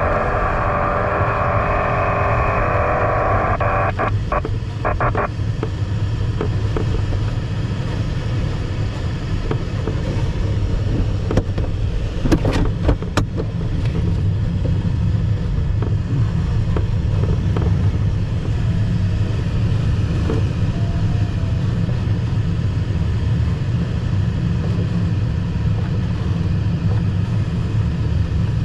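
Steady low rumble in the cockpit of an ASW 15 sailplane during its outlanding. A higher tone sounds for the first four seconds, and there are a few sharp knocks about twelve seconds in.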